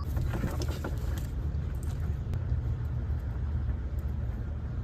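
Steady low outdoor rumble, with a few faint clicks and handling noises in the first second as the drain tubing is worked onto the engine block drain cock.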